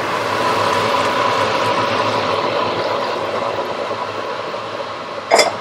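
Caramelized pork sizzling in a hot pan as liquid is poured in from a steel bowl; the steady sizzle slowly dies down.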